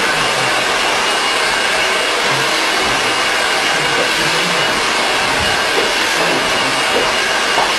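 Handheld hair dryer running steadily: a constant rush of air with a faint high whine from its fan motor.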